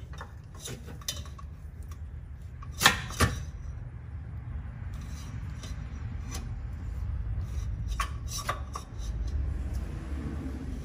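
Scattered metallic clicks and clinks of an oil filter wrench being worked to tighten a new oil filter, the loudest a pair of sharp clinks about three seconds in, over a low steady hum.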